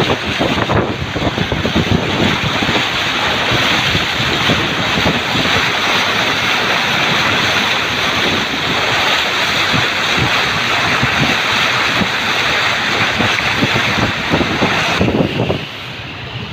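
Loud, steady rush of water noise, with no pitch or rhythm, that drops off suddenly near the end.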